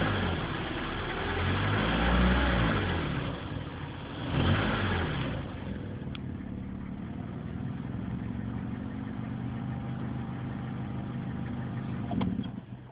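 Car engine revved twice, its pitch rising and falling, then settling to a steady idle about five seconds in. Near the end a click comes and the engine sound drops away.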